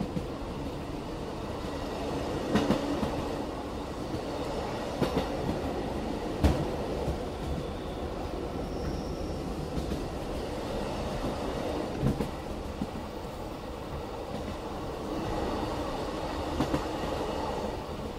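Running sound inside a BLS passenger train carriage: a steady rumble and rattle of wheels on rail. A handful of sharp, irregularly spaced knocks come through as the wheels pass over rail joints.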